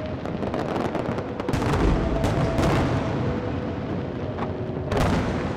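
Fireworks display: a continuous barrage of aerial shell bursts and sharp cracks, heaviest about two seconds in and again near the end.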